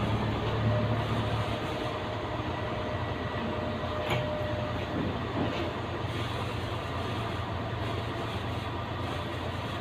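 Diesel engines of a mini excavator and a mobile crane running steadily, with a brief knock about four seconds in.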